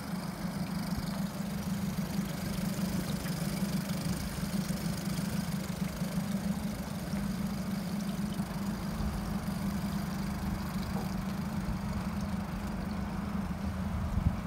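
Twin Yamaha 60 hp outboard engines idling steadily, a low even tone with no change in speed.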